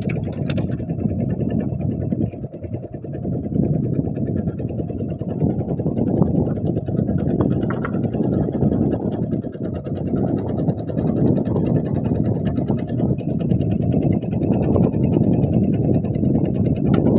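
Small fishing boat's engine running steadily, a continuous low rumble with a faint fine rhythmic ticking over it.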